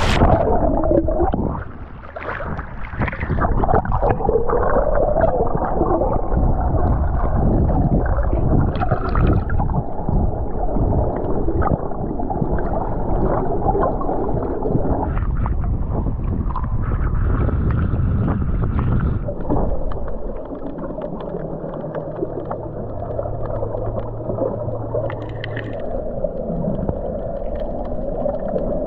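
Underwater sound through an action camera's housing, heard as the camera goes under: the high end drops away and leaves a dull rushing, gurgling wash of sea water. A low steady hum comes in for several seconds past the middle.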